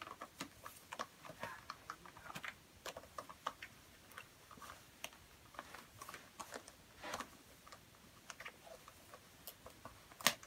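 Handling of an American Girl doll and its dress: irregular small clicks and taps with short fabric rustles as the dress is pulled on and fastened at the back, and one sharper click near the end.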